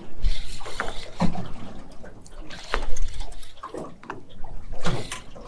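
Water splashing and sloshing, with scattered knocks and clatters.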